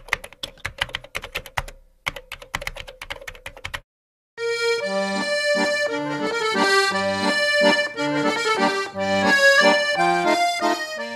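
Rapid keyboard-typing clicks in two runs, a sound effect for text being typed out on screen. After a brief pause, a short instrumental intro tune with a melody over a bass line plays and fades out near the end.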